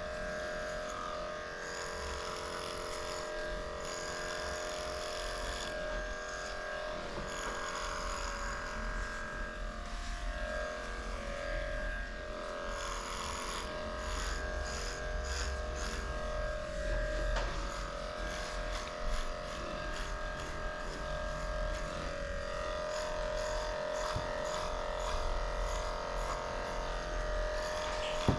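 Electric dog clippers fitted with an 8.5 blade buzzing steadily as they shave through a matted coat.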